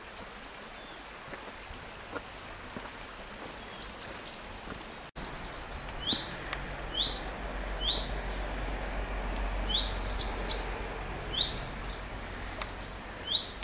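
A small woodland bird calling: a few thin high notes, then a run of short upward chirps repeated about twice a second through the second half. These sit over a steady faint outdoor hiss.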